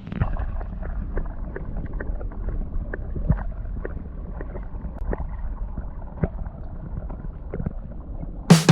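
Small boat on the water: a steady low rumble with many light knocks and taps against the hull, muffled.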